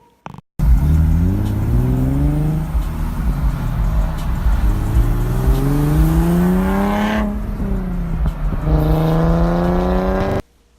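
Car engine accelerating hard through the gears: the revs climb steadily, fall sharply at two gear changes, and climb again, over a heavy low rumble. It starts and cuts off abruptly.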